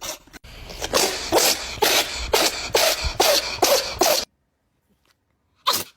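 Cat sneezing in a quick run of about ten sneezes, one every third of a second or so. The sound cuts off suddenly, and one more sneeze comes near the end.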